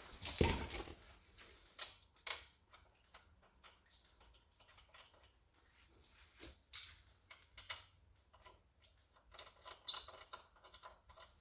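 Handling noise of an ATV track being hung on the wheel hub: a heavy thump about half a second in, then scattered light clicks, knocks and scrapes of metal parts.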